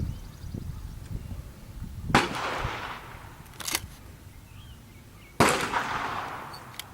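Shotgun shots on a clay range: three sharp reports, about two seconds in, about three and a half seconds in, and the loudest about five and a half seconds in, each trailing off in an echo.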